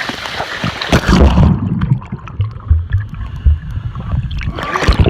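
Water splashing and sloshing right against a camera's waterproof case. After about a second and a half the sound turns muffled and dull, with low buffeting thuds, for about three seconds. A loud splash comes near the end.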